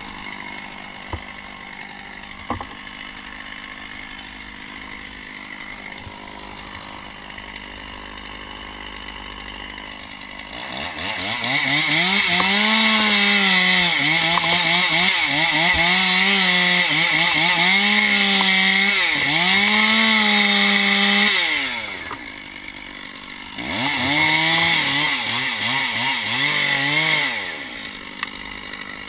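Two-stroke petrol chainsaw idling, then run up to full throttle and cut into a pine trunk near the ground for about ten seconds, its engine note dipping and recovering as the chain takes load. It drops back to idle, makes a second, shorter cut of about four seconds, then idles again.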